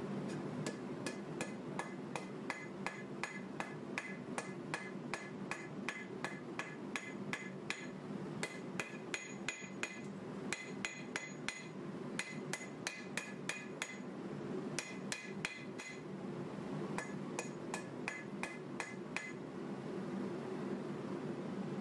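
Blacksmith's hammer striking red-hot 1095 steel knife stock on an anvil: a rapid run of ringing blows, about three a second, with a couple of short pauses, and the blows stopping a few seconds before the end. A steady low hum runs underneath.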